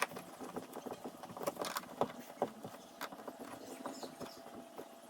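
Screws being driven through a Scotty rod holder mount into a plastic kayak hull: irregular clicks, knocks and faint creaks as the screw bites and the tool works it in.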